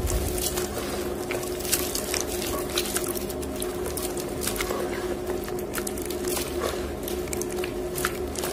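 Hands squeezing and kneading wet gym chalk paste in water, with repeated wet squelches and sharp crackles. A steady low hum from a washing machine runs underneath.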